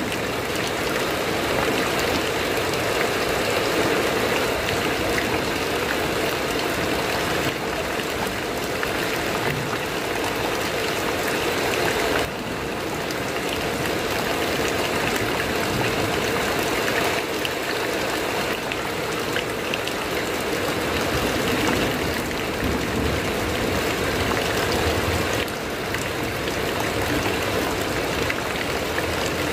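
Heavy rain falling on a corrugated metal roof: a steady, dense patter with no pauses.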